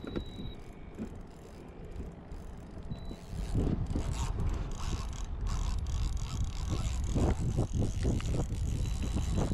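Runcl Titan II 2000 fishing reel working, its mechanism clicking and ratcheting. A loud low rumble comes in about three seconds in.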